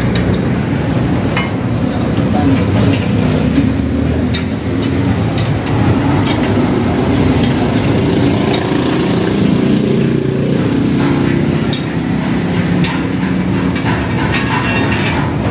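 Hand-cranked chaff cutter (toka machine) running: the big flywheel, gears and blade assembly turning and clattering steadily as the handwheel is cranked, with scattered sharp clicks.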